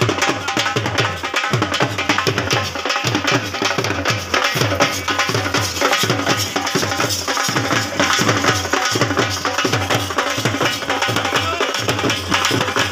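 Percussion-led music: deep hand-drum strokes with sliding pitch keep a fast, steady beat under a busy layer of sharper hits.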